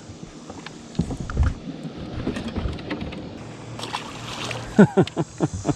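Handling noises in a fishing boat: low bumps and knocks, then a quick run of five or six sharp clicks near the end.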